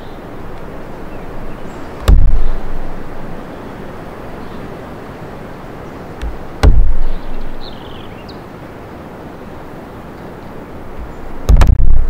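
Steady wind through the forest. Three times, about 2, 6.5 and 11.5 seconds in, it is broken by a short, heavy low thump. A few faint, high bird chirps come through.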